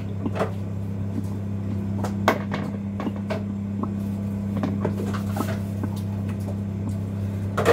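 Steady low hum, with scattered light clicks and knocks of kitchenware being handled.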